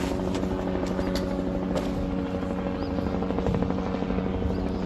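Helicopter running steadily: an even engine and rotor drone with a fast, regular beat.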